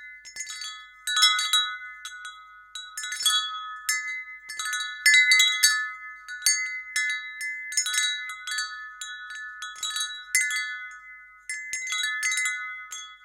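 Wind chime ringing, its few tones struck again and again at an irregular pace, each strike ringing on over the next.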